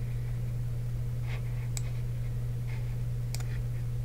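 Steady low hum under two faint computer mouse clicks, about two and three and a half seconds in.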